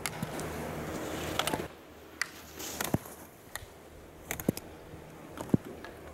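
Skis scraping over hard snow for the first second and a half or so. Then sharp clacks every half second to a second, as a slalom racer knocks the gate poles aside.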